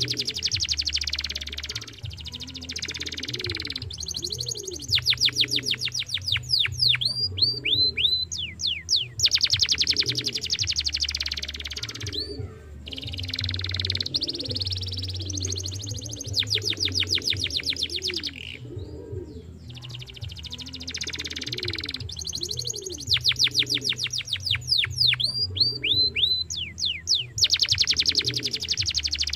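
Domestic canary singing: long loud phrases of very rapid, high trills, each a run of quick falling notes, with brief pauses about twelve and nineteen seconds in. A low hum runs underneath.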